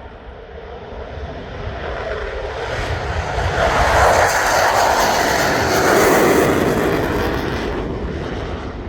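Saab JAS 39C Gripen fighter jet passing close, its single RM12 turbofan swelling to a loud roar and then fading away as it goes by.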